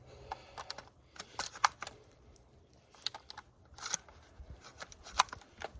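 Irregular sharp clicks and light rattles of 12-gauge shotgun shells being handled, gathered up and loaded.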